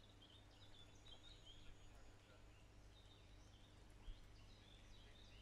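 Near silence: faint outdoor background with scattered faint high bird chirps over a low steady hum, and one brief low bump about four seconds in.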